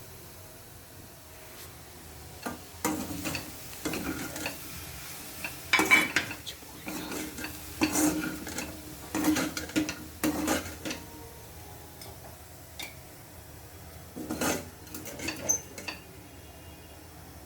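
Utensil stirring and scraping in a dish of vegetables, with short clinks and scrapes in two spells and a pause of a few seconds between them.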